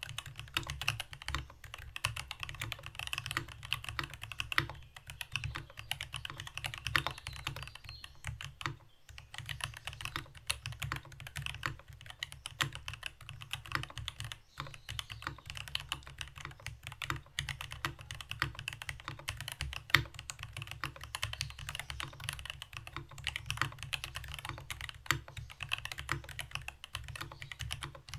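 Continuous typing on a Rama Works U80-A mechanical keyboard with stock NK Silk Black linear switches in a brass plate and GMK keycaps: a steady stream of keystroke clacks with a brief pause about nine seconds in.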